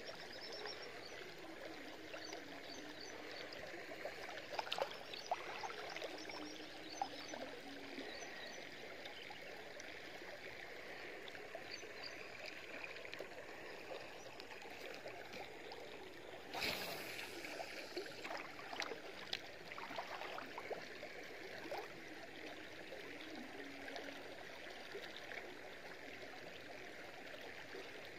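Steady sound of flowing, trickling water, with scattered faint clicks and one brief louder burst of noise about two thirds of the way through.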